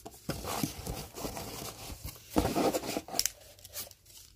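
Rustling and scraping of paper and card as hands handle a small cardboard gift tag and ribbon against a gift box in a cardboard shipping carton, loudest a little past halfway, with a few sharp clicks after it.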